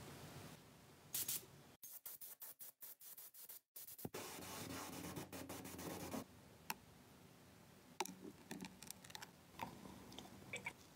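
Paint spray gun hissing, first in short choppy stretches and then steadily for about two seconds, followed by fainter clicks and small handling sounds.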